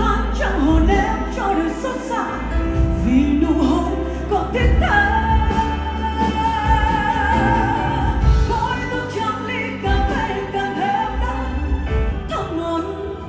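A woman singing live into a microphone over band accompaniment, holding one long note through the middle.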